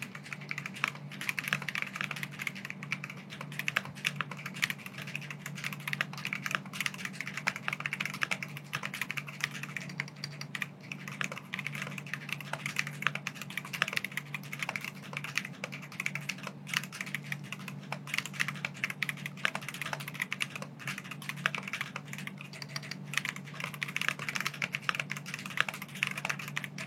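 Fast, continuous typing on a Keychron Q1 Pro mechanical keyboard with factory-lubed Keychron K Pro Banana tactile switches: a dense, unbroken patter of keystrokes.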